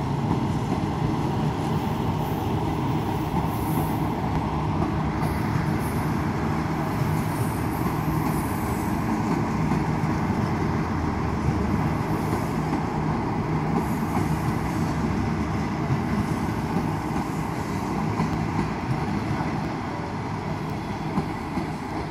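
Chinese 25G passenger coaches rolling slowly past as the train arrives at the station: a steady rumble of wheels on rail, with high-pitched wheel squeals coming and going. The sound eases slightly near the end as the last coach goes by.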